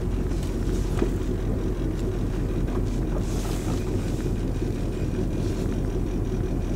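Small motorhome's engine running as it rolls slowly across a parking lot, a steady low drone heard from inside the cab. A brief hiss rises over it about halfway through.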